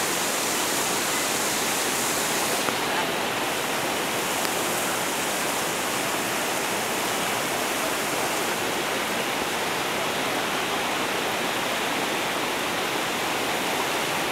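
Shallow river rushing over and around boulders in small rapids, a steady, even rush of water.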